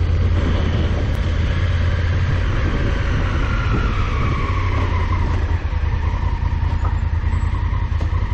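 A loud, steady engine drone with a strong low hum and a whine that slides down in pitch over a few seconds. It cuts off abruptly near the end.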